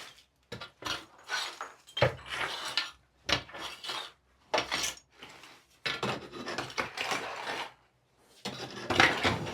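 Bits of wooden kindling being gathered off the floor and dropped into a small tub: irregular scraping, rustling and light clattering of wood, loudest near the end.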